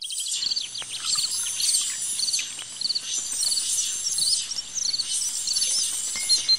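Several small birds chirping and singing together, with quick, high, repeated notes overlapping one another.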